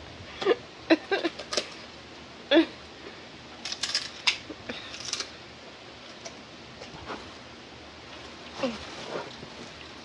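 Dogs moving about on a cushioned dog bed and a wooden floor: scattered clicks and scuffs, with a few brief voice-like sounds in the first three seconds.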